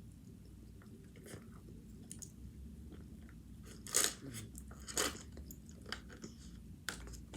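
A person chewing food close to the microphone, with two louder crunchy bites about four and five seconds in.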